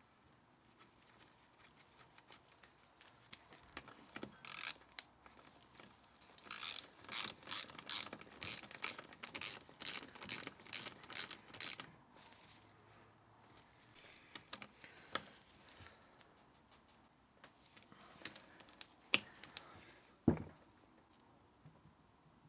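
Metallic clicking from hand work on a Suzuki Swift five-speed manual gearbox during reassembly. A dense run of sharp clicks, about three a second, lasts about six seconds in the middle, with scattered ticks before and after and a single heavier knock near the end.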